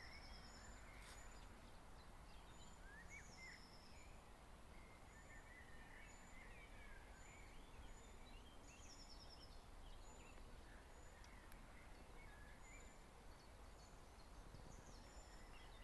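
Faint songbird song from several birds in open grassland: many short chirps, trills and high repeated notes throughout, over a steady low background rumble.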